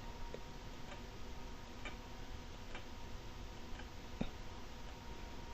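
A handful of faint, irregular clicks from a computer mouse as items are selected one after another, over a faint steady hum.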